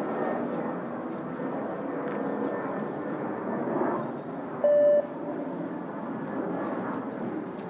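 A single short, steady bleep from the 15-metre bleep-test recording about two-thirds of the way in, marking the end of a shuttle, over a steady background din.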